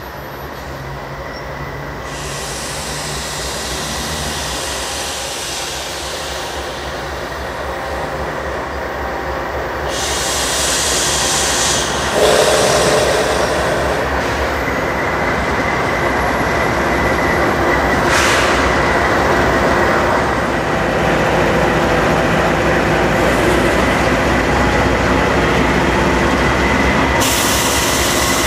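Freight train approaching and rolling past, its steel wheels running over the rails, growing louder over the first dozen seconds and then holding steady. A thin, steady, high squeal from the wheels runs through it and gets stronger in the second half.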